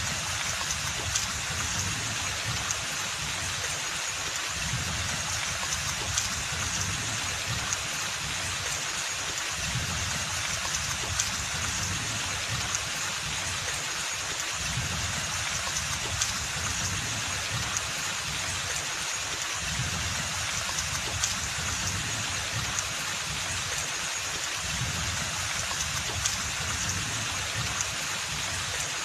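Steady rain falling on forest foliage, an even hiss with a short louder drip about every five seconds.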